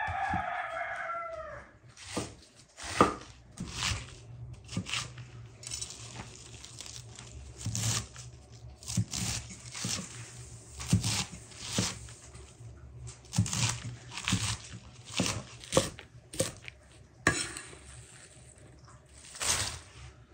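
A rooster crows once at the start. Then a knife cuts through a head of white cabbage on a wooden board: a long run of sharp, irregular crunching slices, about one or two a second.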